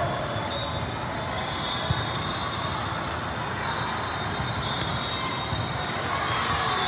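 Volleyball being played in a large, crowded multi-court hall: a steady din of the hall with ball hits, one sharp smack of a ball about two seconds in.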